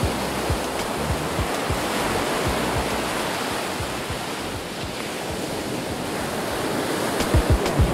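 Ocean surf washing up the beach: a steady rush of breaking waves and foam over sand. Wind buffets the microphone in low thumps near the start and again near the end.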